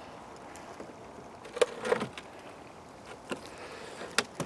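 A few scattered wooden knocks and clicks from beehive frames being lifted out of the hive box and handled.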